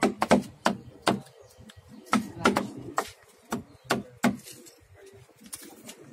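A mallet striking a chisel into a big wooden carving: a dozen or so sharp knocks in uneven runs, thinning out near the end.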